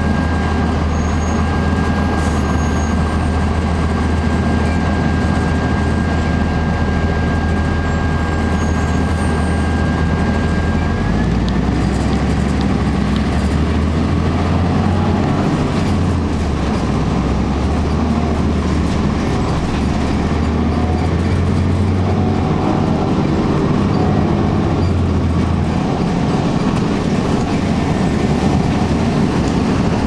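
Inside a 2002 Blue Bird CS transit bus under way: the Cummins ISC inline-six diesel and Allison automatic transmission run steadily, with a thin high whine throughout. About eleven seconds in, the engine note shifts and the whine steps up slightly in pitch, and the engine note changes again later on.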